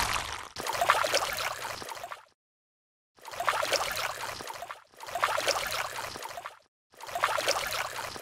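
Wet, squelching slime-and-mud sound effects for catfish sliding over mud. They come in four bursts of about a second and a half each, with short dead silences between.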